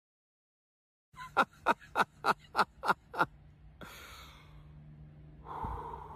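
A person laughing in seven quick 'ha' bursts, each falling in pitch, about three a second. Then a breathy intake and a soft breathy blow through a bubble wand near the end.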